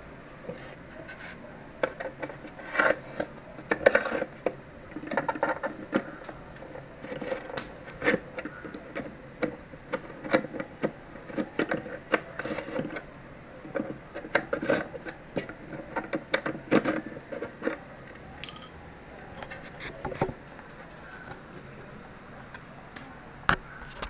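A pen scraping and rubbing on a styrofoam ice box lid while tracing around a computer fan held down on it, with irregular sharp clicks and knocks as the fan and pen are handled.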